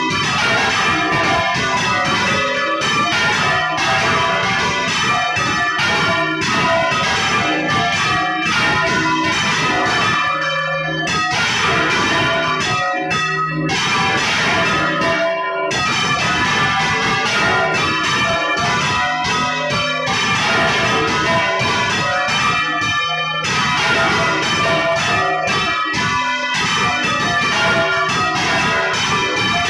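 Several church bells rung by hand, heard from inside the belfry: a dense, continuous peal of overlapping strokes from bells of different pitches.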